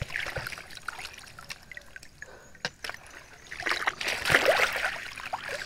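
Shallow river water splashing and trickling as it is disturbed by someone reaching or stepping into it, with a louder spell of splashing around four seconds in.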